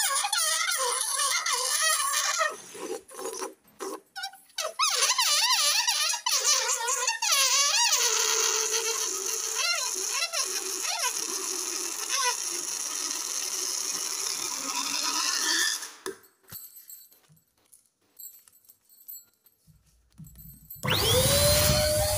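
Air escaping from inflated latex balloons through their stretched necks: a warbling, wavering squeal over a rush of hiss. It stops about two-thirds of the way in, leaving a few soft handling clicks. Near the end another balloon lets out a steady squeal that drops in pitch as it empties.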